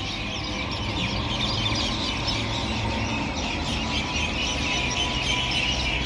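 A large flock of birds chirping in a tree as they gather to roost for the evening: a dense, continuous chatter of many overlapping high chirps.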